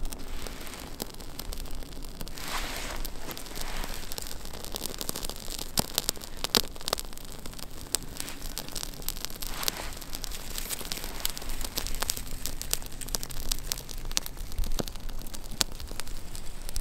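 Small kindling fire crackling with irregular sharp snaps as burning tinder and curled wood shavings catch, with rustling as the shavings are pushed onto the flame.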